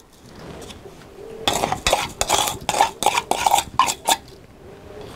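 A plate knocking and scraping against the rim of a large aluminium pot as sugar is shaken out of it onto flour: a quick run of clatters starting about a second and a half in and lasting about three seconds.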